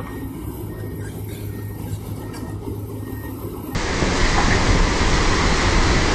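Excavator diesel engine running with a steady low hum. About four seconds in, a sudden change to a louder, even rushing noise of fast-flowing floodwater.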